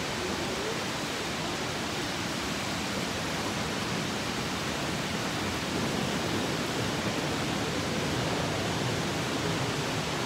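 Steady rushing and splashing of water from thin fountain jets arcing into a garden pond, a little louder from about halfway through.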